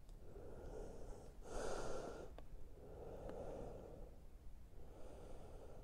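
A man breathing close to the microphone: about four slow, soft breaths, the second the strongest, with two faint clicks in the middle.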